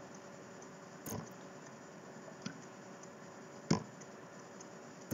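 A few short, sharp clicks a second or more apart over quiet room tone: computer mouse clicks as chess moves are stepped through on screen.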